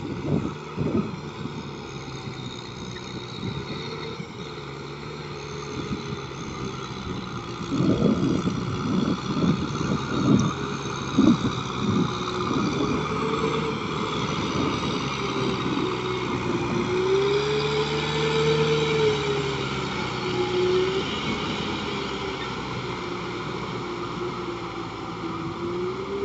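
Kubota M6040SU tractor's diesel engine running under load as it pulls a rotary tiller through flooded paddy mud, its pitch wavering up and down. A run of low thumps comes in about eight to twelve seconds in.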